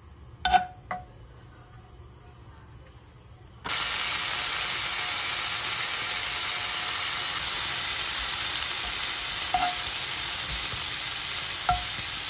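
Bacon strips sizzling in a nonstick frying pan, a steady hiss that starts suddenly about three and a half seconds in. Before it, metal tongs clink twice against the pan. Two more light clinks sound during the sizzle.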